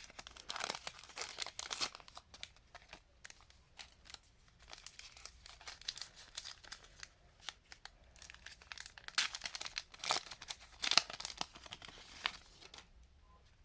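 A trading-card pack wrapper being torn open and crinkled, irregular crackling with louder bursts about nine to eleven seconds in, stopping shortly before the end.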